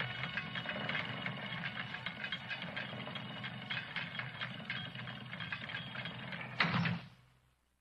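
Laboratory platform-lowering machinery running, a steady mechanical rattling and grinding over a low hum. It ends about seven seconds in with a louder clatter, then stops.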